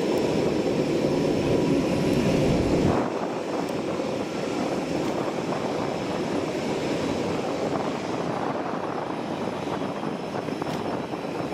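Lockheed C-130J Super Hercules turboprop engines and six-bladed propellers droning steadily as the transport flies in low on approach. The deep rumble drops away about three seconds in, leaving a lighter, even drone.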